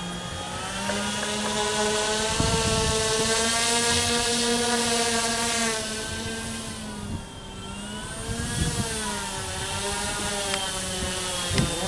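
Radio-controlled twin-engine Cessna model's motors and propellers running as it taxis on grass. The pitch rises with throttle about two seconds in, falls back around seven seconds, then climbs again.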